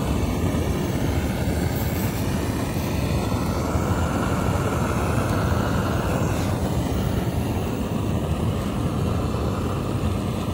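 Gas torch burner firing continuously into a large balloon to fill it with hot air, a loud steady rushing noise.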